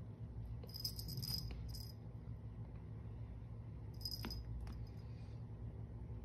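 Cat wand toy with feathers and a fabric fish jingling and rattling in two short bursts as it is jiggled and pawed, about a second in and again about four seconds in, over a low steady hum.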